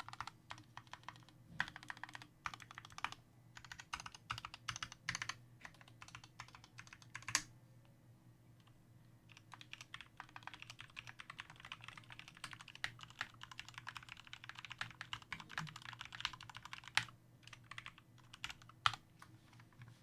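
Typing on a GMMK Compact 60% mechanical keyboard with lubed Gateron Yellow linear switches. Runs of rapid keystrokes come with a short pause about eight seconds in, and there are a few louder single strokes.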